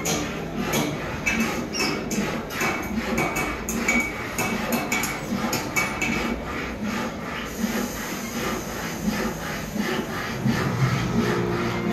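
Quick, irregular knocking and tapping on wood, several strikes a second, thinning out about two-thirds of the way through.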